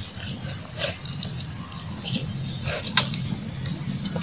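Puppies eating rice from a metal tray: wet chewing and lapping with scattered sharp clicks of teeth and muzzles against the tray, the loudest click about three seconds in.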